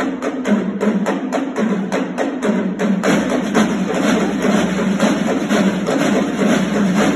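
Drumline of snare drums playing: quick, evenly spaced strokes for the first few seconds, then denser striking about three seconds in.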